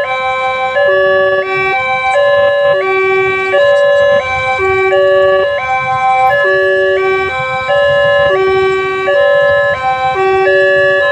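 Electronic warning siren of a railway level crossing sounding. It is a loud, repeating pattern of electronic tones that step up and down between fixed pitches.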